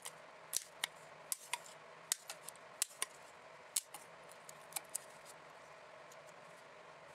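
Handheld hole punch clicking as it punches holes through foam core binding strips: a series of sharp clicks at irregular intervals, most of them in the first five seconds.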